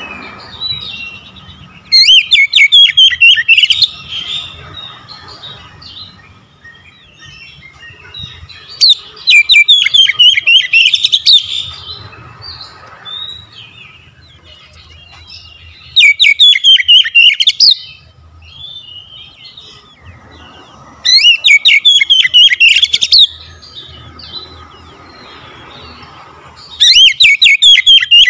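Oriental magpie-robin singing loud phrases of rapid, repeated notes, five times, each about two seconds long, with softer chirps in between.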